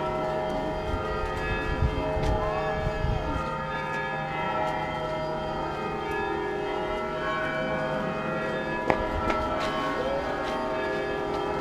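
Orthodox church bells ringing continuously, many bell tones sounding together, with a sharp click about nine seconds in.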